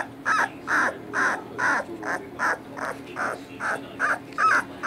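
Young basset hound puppy crying in short, evenly spaced yelps, a little over two a second.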